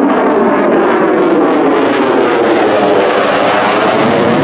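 Lockheed Martin F-35 fighter's single Pratt & Whitney F135 afterburning turbofan roaring loudly as the jet flies overhead, with a sweeping, phasing shimmer running through the roar.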